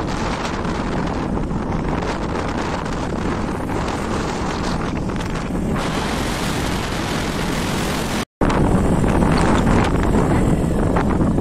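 Wind rushing over the microphone together with the engine and road noise of a vehicle travelling along a road. It cuts out for a split second about eight seconds in and comes back a little louder.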